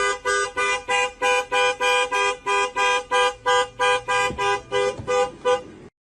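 A two-note car horn honking in short, rapid blasts, about three a second, in a steady rhythm that cuts off abruptly near the end.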